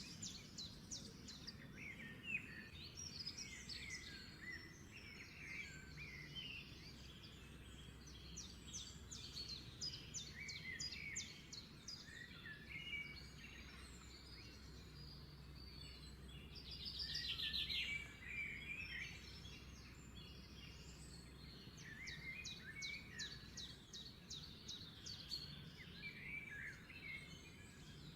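Several birds chirping and calling, with quick repeated trills and the loudest trill about seventeen seconds in, over a faint steady low hum.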